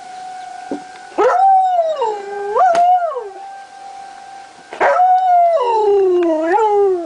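Dutch shepherd–husky mix dog howling along with a tornado warning siren: two long howls, the first starting about a second in and the second about five seconds in, each sliding up and down in pitch. The siren's steady tone carries on underneath.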